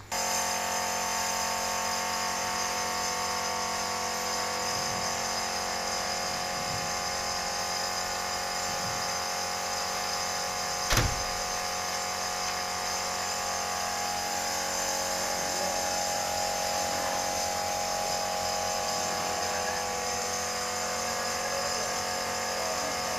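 A workshop machine's motor running steadily: a constant whine made of several steady tones, which starts abruptly. There is one sharp knock about eleven seconds in.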